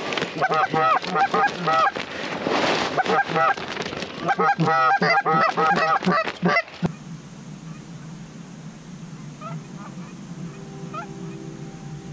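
Rapid, loud Canada goose honks and clucks, many calls a second, close at hand. About seven seconds in they cut off abruptly, and only a few faint, distant honks follow.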